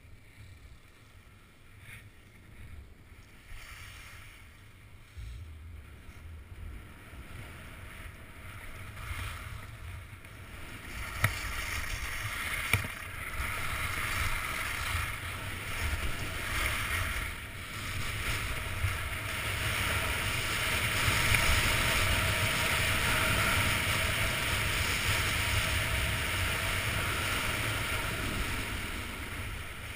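Skis sliding and carving on groomed snow, with wind rushing over a helmet-mounted action camera's microphone. The rush grows steadily louder as the skier picks up speed, with a couple of sharp clicks about halfway through.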